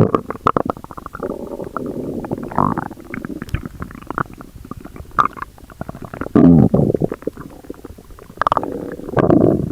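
Stomach growling: a long run of gurgling and rumbling with many small pops, swelling louder about six and a half seconds in and again near the end.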